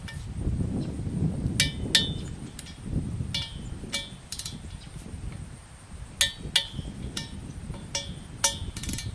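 Ratchet wrench clicking as it tightens the set screws of a top cap onto a galvanized steel support pipe: sharp metallic clicks in pairs, about four pairs a couple of seconds apart, over a low rumble.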